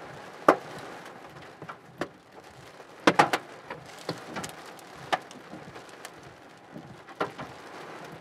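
Hailstones striking a car, with irregular sharp knocks on the body and windshield over a steady hiss of rain.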